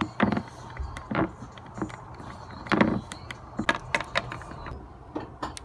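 Irregular clicks and knocks from small plastic Littlest Pet Shop figurines and the phone being handled, about eight or nine short taps spread over a few seconds.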